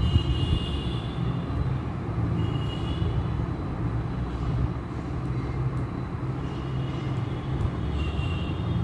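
Steady low background rumble, with faint high tones at the start, about three seconds in, and again near the end.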